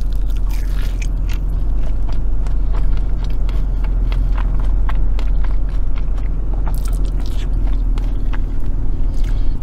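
Close-up biting and chewing of a fried, breaded mac and cheese ball dipped in sauce, with many short crunchy, wet clicks throughout, over a steady low hum in the car cabin.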